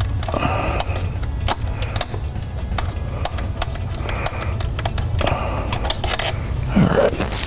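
Irregular light clicks and taps of hands working a 6R140 transmission filter loose from its bore in the valve body, over a steady low hum.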